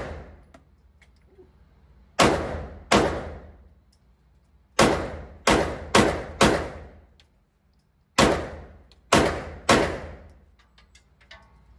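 Semi-automatic pistol being fired, nine shots in uneven groups of two to four, each a sharp crack with an echoing trail.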